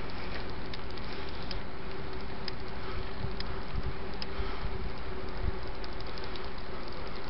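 Helmet-camera audio of riding a bicycle along a path: a steady rushing noise with a constant buzzing hum, and scattered small knocks and rattles from the bike over the ground.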